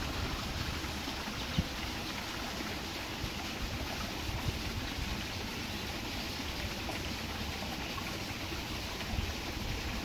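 Steady outdoor wind noise: a low, uneven rumble of wind on the microphone with an even hiss above it.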